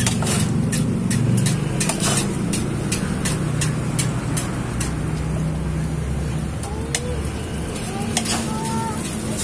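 Metal spoon clinking sharply against a steel mug as eggs are cracked and beaten for martabak telur filling, the clinks coming quickly at first and then more sparsely. Under it runs a steady low rumble of street traffic.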